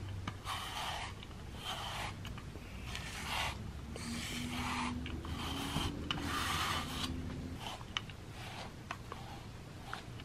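Grooming brush rubbing through a cat's fur in repeated short strokes, roughly one a second.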